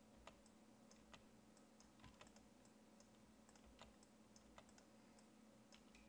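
Near silence with faint, scattered clicks of a computer keyboard and mouse, a few a second, over a faint steady electrical hum.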